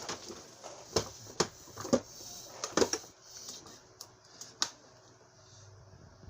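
Irregular sharp clicks and knocks of small vacuum cleaner parts being handled and fitted together by hand, thinning out after about three seconds.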